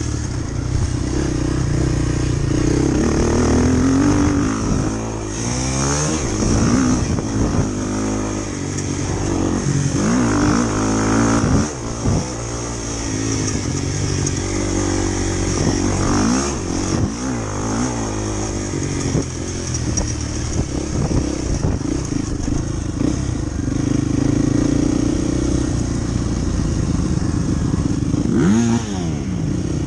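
Motorcycle engine, a Honda XR250 Tornado single-cylinder, being ridden: the pitch rises and falls again and again as the throttle is opened and closed.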